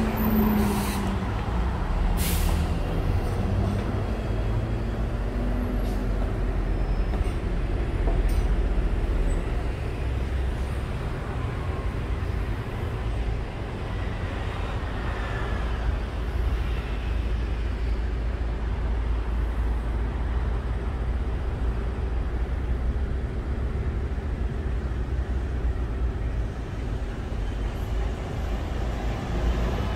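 City road traffic: the steady low rumble of buses and cars running past, with an engine tone in the first few seconds and a short hiss about two seconds in.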